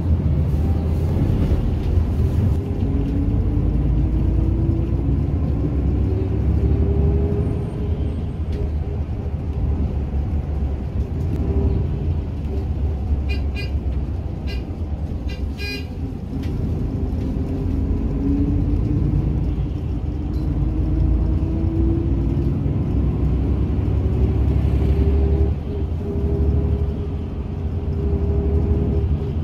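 Heard from inside a city bus: the engine and drivetrain rumble steadily, with a whine that rises in pitch as the bus speeds up, several times over. A short run of quick beeps comes about halfway through.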